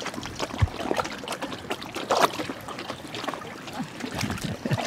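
Basset hounds wading through a shallow stream: irregular splashing and sloshing of water around their legs over the trickle of the flowing stream, with one louder splash about two seconds in.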